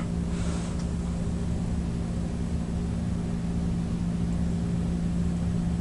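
Steady low hum with a low rumble beneath it, unchanging throughout.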